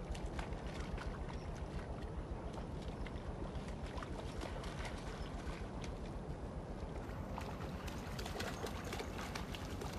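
Shallow river water splashing irregularly as a Groenendael (Belgian Shepherd) wades through it, over a steady low rumble.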